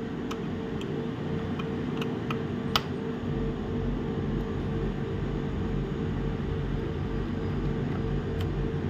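Steady mechanical hum, like a room fan, growing a little louder about three seconds in, with a few light clicks of plastic laptop parts being handled.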